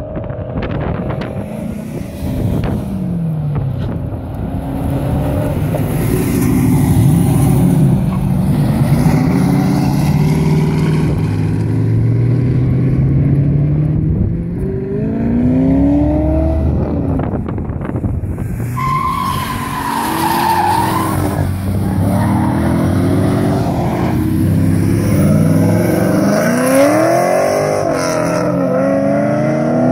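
V8-engined cars driving past one after another, engines revving and accelerating, each engine note rising and then falling as the car goes by. About two-thirds of the way through, a brief higher whine rises over the engines.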